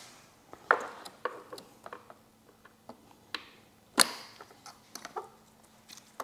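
Irregular small plastic clicks and snaps as wiring connectors are pried loose from the back of a motorcycle's gauge pods with a small screwdriver, their locking tabs lifting to release the plugs; one sharper snap about four seconds in.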